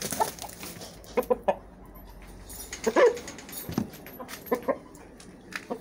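Aseel chickens clucking in short calls, with a louder squawk about three seconds in, as a rooster harasses a hen. A brief rush of wing flapping comes at the very start as the rooster flies at her.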